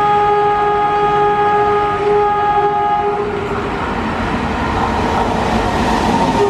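Indian Railways locomotive horn blowing one long blast of about three and a half seconds as the train approaches at speed. After the horn, the rumble and rail noise of the oncoming train grow louder, and the horn sounds again at the very end.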